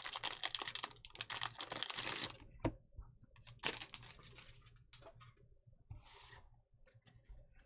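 Trading cards and their packaging handled on a tabletop: a dense run of rapid crackling clicks for about two seconds, a shorter run about three and a half seconds in, then a few faint taps and a soft rustle.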